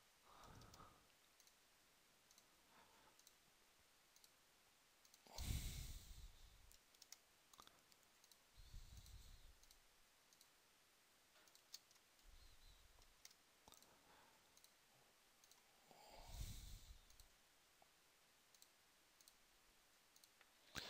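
Near silence with faint, scattered computer mouse clicks and key taps, and a few louder soft noises, the loudest about five and sixteen seconds in.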